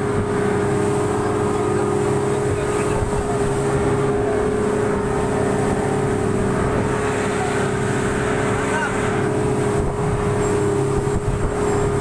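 Speedboat engine running steadily at speed, one constant drone over the rush of the wake.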